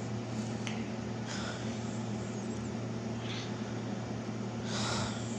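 Steady electric hum of a running fan, with a few brief soft rustles or breaths over it, the last near the end.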